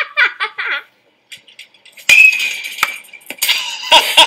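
Laughter trailing off in the first second, then after a short pause a loud burst of clattering and clinking with sharp knocks, and more clatter near the end.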